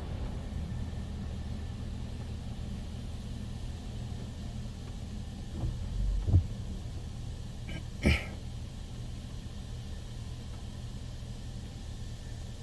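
Water Wizard touchless car wash machine running over the car, heard from inside the cabin as a steady low rumble. There are a couple of dull thumps around six seconds in and one sharp knock about eight seconds in.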